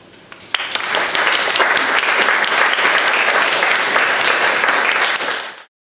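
Audience applauding, starting about half a second in and cutting off suddenly near the end.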